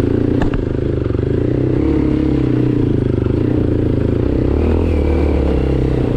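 Off-road motorcycle engine running steadily, with a brief clack about half a second in.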